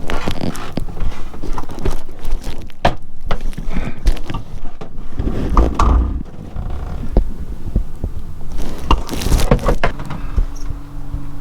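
Irregular knocks and clicks over a low rumble, with a steady low hum coming in near the end.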